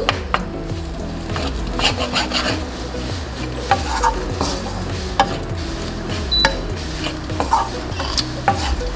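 Wooden spatula stirring and tossing mashed raw-banana stir-fry in a nonstick wok, with irregular scrapes and taps against the pan over a light sizzle of frying.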